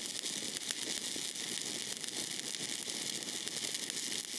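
Stick welding arc from a 7018 electrode burning on quarter-inch steel: a steady crackling hiss, full of small sharp pops.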